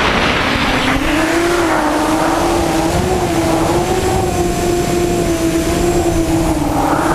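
Six Cobra CM2208-20 2000kv brushless motors on a hexacopter spinning 6045 propellers, a steady buzzing whine that wavers up and down in pitch with the throttle, with wind rushing over the onboard microphone. A louder rush of air fades over the first second or so while the motor pitch climbs.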